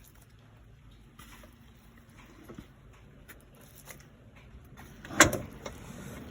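Faint rustles and small clicks, then one loud, sharp crunching clatter about five seconds in, from compost materials (dry corn stalks and eggshells) being handled.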